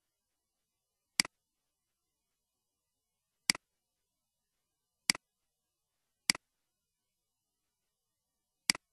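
Computer mouse button clicks: five short, sharp clicks spaced unevenly, one to two and a half seconds apart.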